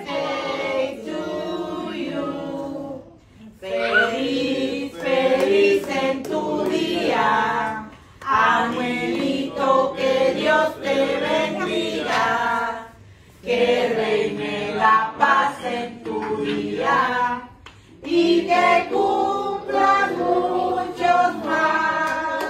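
A family group of adults and children singing a birthday song together, unaccompanied, in several phrases with short pauses between them.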